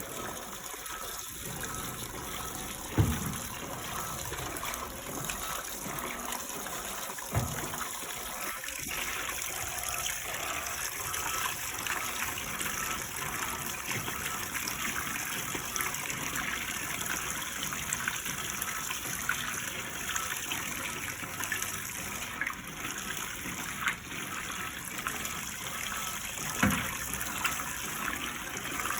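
Water running steadily inside an Electrolux washing machine, a constant rushing and splashing, with three short low thumps spread through it.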